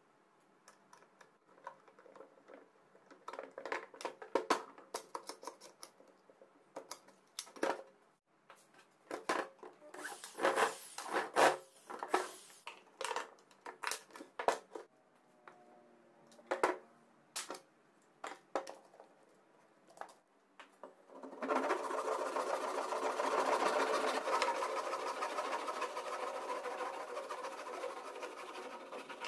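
A run of irregular knocks and clicks, as of work on wood and metal parts, then about three-quarters of the way in a small power tool's motor starts and runs steadily.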